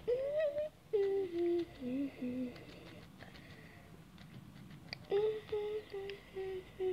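A boy humming a tune with closed lips: a few held notes stepping down in pitch, a pause, then a run of short repeated notes near the end. Faint clicks from the phone being handled.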